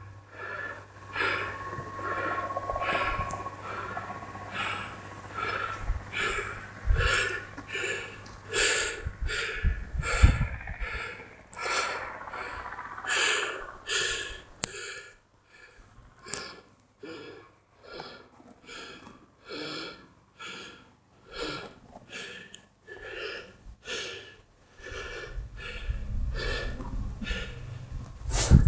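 Footsteps crunching in snow at a steady walking pace, about three steps every two seconds, with a few low gusts of wind buffeting the microphone.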